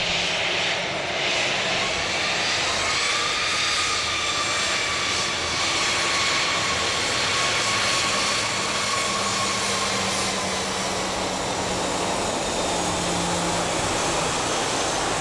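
Airbus A320-214's CFM56-5B turbofan engines running at low taxi power as the airliner rolls close past: a steady jet hiss with a thin whine that rises slightly about three seconds in and then eases off.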